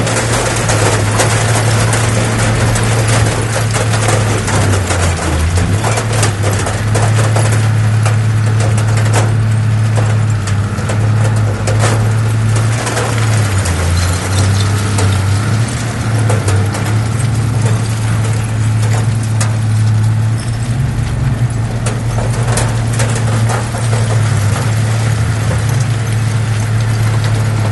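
Heavy diesel earthmoving machinery running steadily with a deep engine hum, and scattered short clicks over it.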